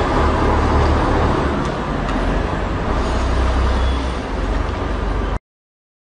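Street ambience: a steady low rumble of road traffic with a general noisy haze, which cuts off abruptly near the end.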